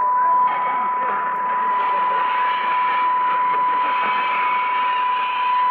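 Weak shortwave AM broadcast on 4845 kHz received on a Sony ICF-2001D with its narrow filter. Band-limited hiss and static carry a steady high whistle, and the programme audio is faint underneath.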